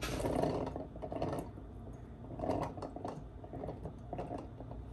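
Handfuls of cooked chickpeas dropped into a plastic food processor bowl: clusters of small clicks and rustles in several bursts, the loudest at the start.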